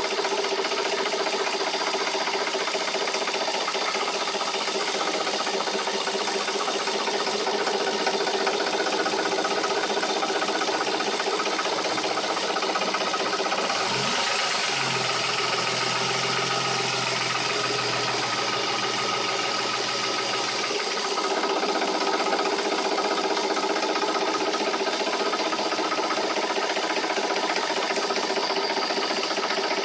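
Opel Omega V6 engine idling with a rattle from the engine bay. The rattle comes only with the engine warm and at idle, and goes away when it is revved. A lower hum joins for several seconds about halfway through.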